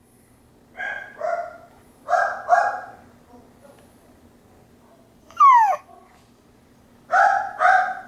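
Dog barking off camera in three pairs of short, quick barks, with one brief falling whine in the middle.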